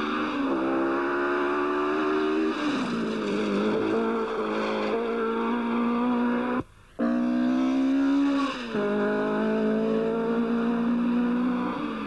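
Rally car engine running hard at high revs, its note held steady and then falling in pitch twice, about two and a half and nine seconds in. The sound cuts out briefly about seven seconds in.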